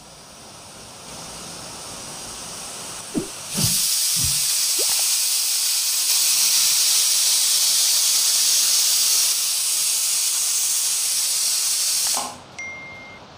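Stovetop pressure cooker whistling. Steam hisses from the weight and builds for a few seconds, then about three and a half seconds in the weight lifts with a few knocks and a loud, steady blast of steam escapes. The blast lasts about eight seconds and cuts off suddenly. This is the cooker's second whistle, the count the cook uses to tell the beetroot is done.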